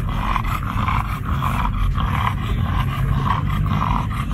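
American Bully dog panting hard, out of breath, close up, in quick rhythmic breaths of about two or three a second.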